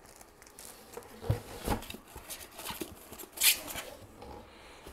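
Clear plastic bag crinkling in the hands, with scattered rustles and light knocks from a cardboard box and its foam packaging being handled. The loudest rustle comes about three and a half seconds in.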